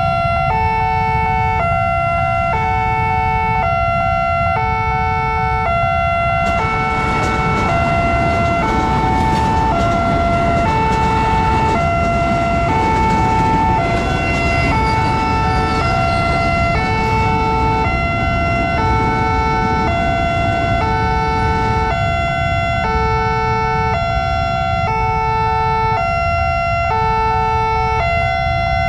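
Level-crossing warning siren of the Nippon Signal type sounding a steady electronic two-tone alarm that switches pitch about every two-thirds of a second. From about six seconds in until about twenty-two seconds in, a KRL Commuter Line electric train passes over the crossing, its rushing noise under the alarm. Waiting motorcycle engines idle throughout.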